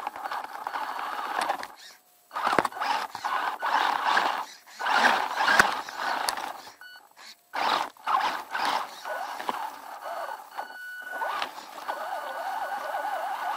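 WLtoys 10428 RC truck's electric motor and gears whirring as it drives over rough forest ground, with repeated knocks and rattles from the chassis bouncing over sticks and bumps. The motor noise drops out briefly twice, about two seconds in and about seven seconds in.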